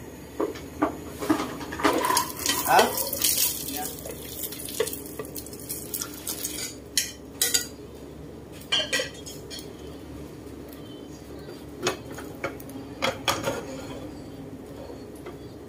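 Cooking utensils tapping and clinking against a non-stick frying pan and a ceramic bowl while beaten egg is poured in and fried. Scattered short knocks, thickest in the first few seconds, then a few at a time, over a low steady background noise.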